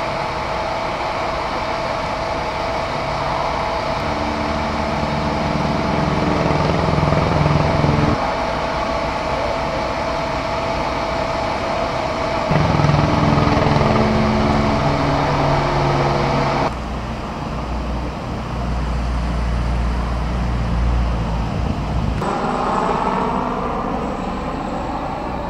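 Idling engines of emergency vehicles with a steady hum. The sound changes abruptly several times, and near the end an engine's pitch rises.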